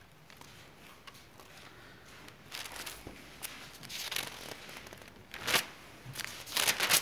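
Pages of a paper Bible being leafed through: several short, crisp rustles in the second half, the loudest near the end.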